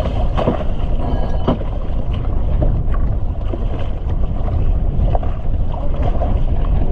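Strong wind buffeting the microphone aboard a sailboat, a steady low rumble with a few sharp knocks in the first couple of seconds.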